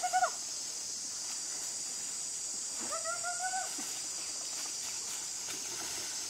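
Steady high-pitched insect chorus, the kind made by cicadas or crickets, with two short drawn-out vocal calls from a person: one right at the start, and a longer one, slightly rising, about three seconds in.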